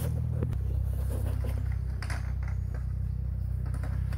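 A steady low mechanical drone, like a motor running, with faint rustling and clicks over it; its pitch pattern shifts slightly about half a second in.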